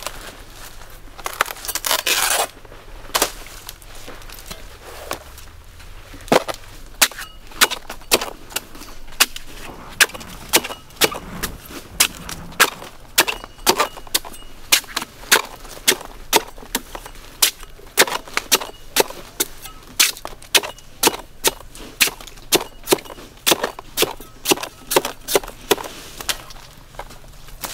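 A blade chopping into coconut, striking sharply and evenly about twice a second. The steady chopping starts about six seconds in, after a few scattered knocks and a short rustle.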